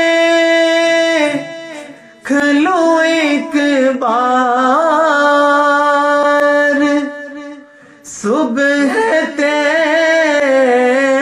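A man singing a naat unaccompanied: long held notes and wavering, ornamented runs in one voice. The voice breaks off briefly twice, about a second and a half in and again around seven seconds in.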